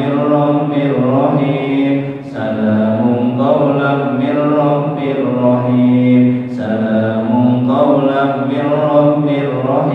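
Group of voices chanting together in unison: a slow, melodic recitation in long held phrases, with brief breaks between phrases.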